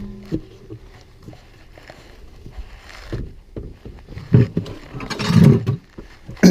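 Knocks and scraping of a car wheel and tools being handled, with a louder rumbling scrape from about four seconds in and a sharp knock at the end.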